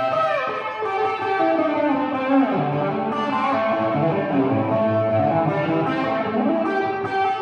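Electric guitar played through a pedalboard into a small Gibson combo amp: a lead line of sustained single notes with several string bends.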